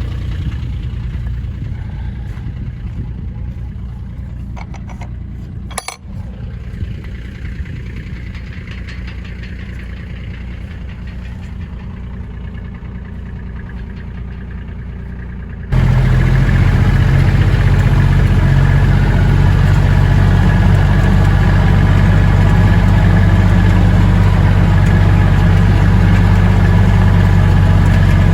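A vehicle engine running steadily, with a few brief knocks about five to six seconds in; about sixteen seconds in the sound jumps abruptly to a much louder, closer engine.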